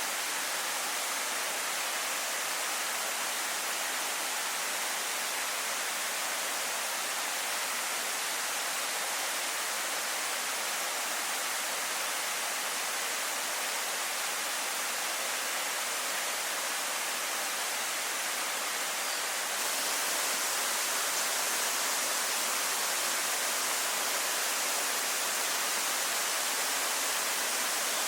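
A waterfall rushing steadily, a dense even roar of falling water. About two-thirds of the way through it turns slightly louder and brighter and holds there.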